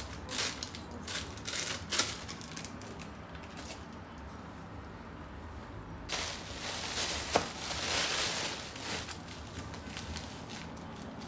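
Thin plastic bags crinkling and rustling as spice is shaken out of them, in scattered bursts at first. A denser crinkling comes about six seconds in and lasts a few seconds, with one sharp click in the middle of it.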